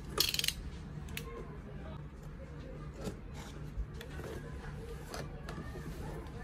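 Cardboard toy box being handled and turned over by hand: a short, loud scraping rustle near the start, then a few light taps and rubs of cardboard against hands and the surface, over a steady low hum.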